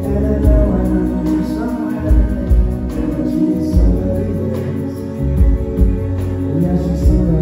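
Live indie rock band playing through a venue PA: electric bass and drum kit carrying heavy low notes and kick-drum thumps under guitars and sustained keyboard or guitar tones.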